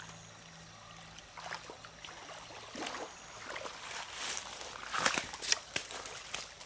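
Water splashing and sloshing at the bank as a hooked carp is brought in, with scattered knocks and rustles. These irregular sounds grow louder from about three seconds in.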